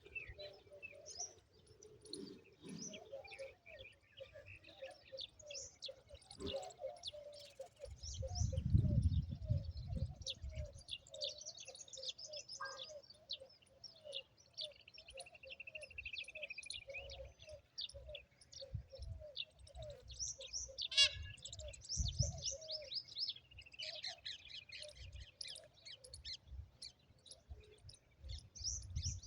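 Morning chorus of many small birds chirping and trilling, over a steady string of short, low, repeated calls. A low rumble rises briefly about eight seconds in.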